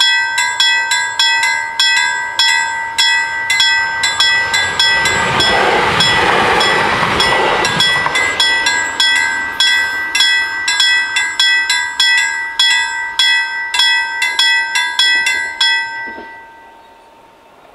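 Level-crossing bells ringing steadily, about three strokes a second, while an X51 electric multiple unit passes over the crossing about five to eight seconds in. The bells stop near the end as the crossing clears.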